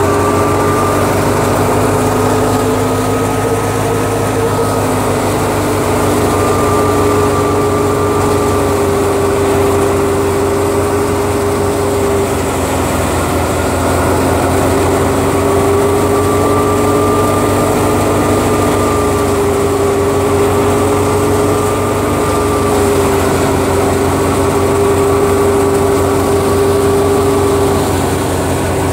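Tractor-powered wheat thresher running steadily as wheat is fed into it, together with the tractor's engine: a loud, even mechanical drone with a hum whose pitch wavers slightly.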